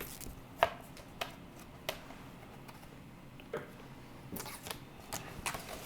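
Protective plastic film being peeled off acrylic shield panels: scattered small crackles and clicks of the film and the handled sheets, with a cluster of them near the end.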